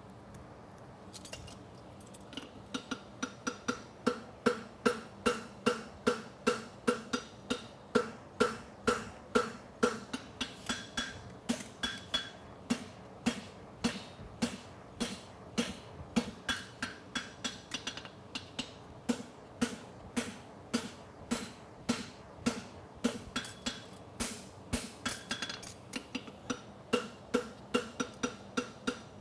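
Farrier's hammer striking a red-hot steel horseshoe bar on an anvil, forging the shoe, at a steady pace of about two blows a second. Each blow is followed by a short ring from the anvil, with a couple of brief pauses.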